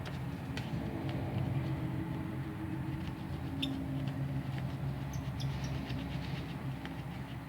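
Steady low hum with a few faint, scattered small clicks and ticks of a thin plastic pry tool working under a phone battery's adhesive.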